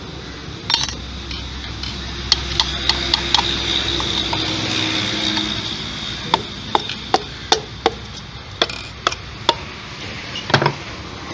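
Wooden hammer handle tapping a piston down through a ring compressor into a cylinder bore of a Suzuki Alto three-cylinder engine block. The taps are sharp and come in two quick runs with a pause between them.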